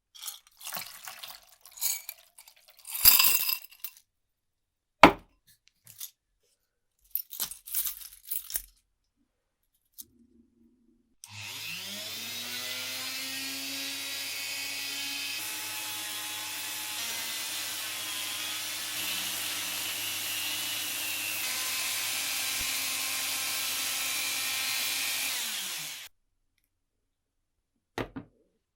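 Clicks and scrapes of small metal parts being handled, then a small electric power tool spins up about eleven seconds in. It runs steadily with a hissing, grinding edge for about fifteen seconds, then winds down and stops.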